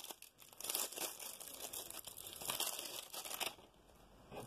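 Clear plastic bag crinkling and rustling as a rolled diamond painting canvas is worked out of it, dying down near the end.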